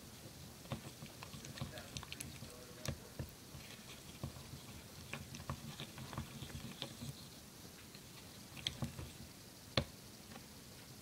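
Wooden craft stick stirring a wet glue mixture in a small plastic cup: faint, irregular squishy clicks and taps, with one sharper tap near the end.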